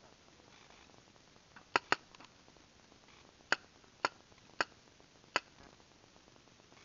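Paintball marker firing: six sharp pops. A quick pair comes about two seconds in, then four more follow, spaced about half a second to a second apart.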